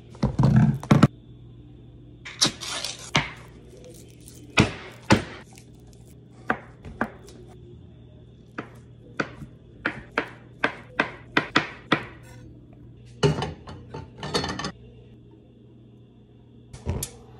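Kitchen food-prep sounds: a heavy clatter of groceries set down on a countertop at the start, then scattered sharp knocks and quick runs of knife taps on a cutting board, as in chopping food.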